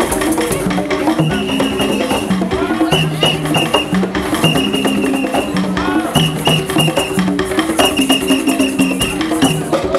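Upbeat African-style drumming: tall wooden hand drums struck in a fast, steady rhythm, with a melodic line and short repeated high notes running through the music.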